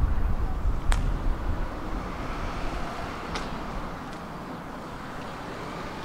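Tram running on its rails, a steady rumble that is heaviest in the first second, with two sharp clicks about a second in and about three and a half seconds in.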